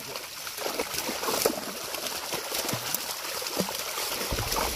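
Many fish thrashing in the shallow water of a drawn-in net, making an unbroken jumble of small splashes. A low rumble comes in near the end.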